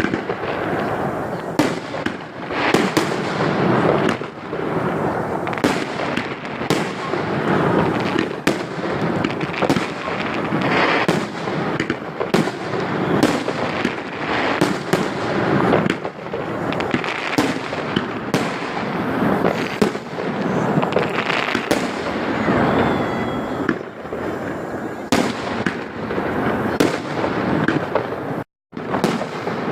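Fireworks display: a dense, continuous barrage of shell bursts, with sharp bangs coming every second or less over steady crackling.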